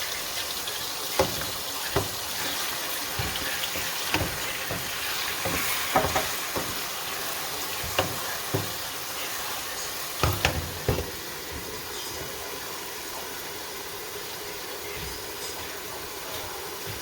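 Food sizzling in a cooking pot with a steady hiss, with a spoon knocking against the pot a dozen times or so, mostly in the first eleven seconds.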